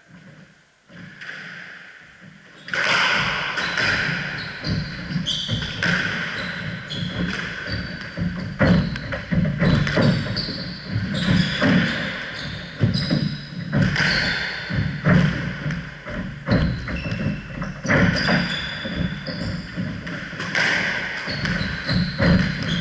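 A squash rally: the ball smacks off rackets and the court walls in quick irregular knocks, mixed with short high squeaks of court shoes on the wooden floor. The rally starts about three seconds in, after a short quiet spell.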